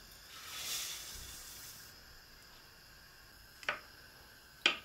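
Dry bulgur poured from a bowl into a pot of hot liquid: a soft rushing hiss lasting about two seconds. Then a wooden spoon knocks twice, sharply, against the pot.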